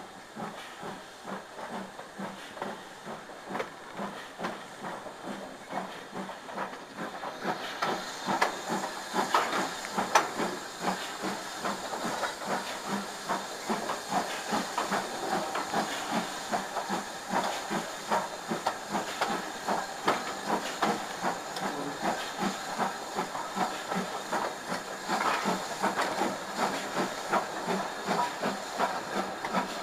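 Steam locomotive under way, with hissing steam over a fast, even rhythm of beats. Louder and hissier from about eight seconds in.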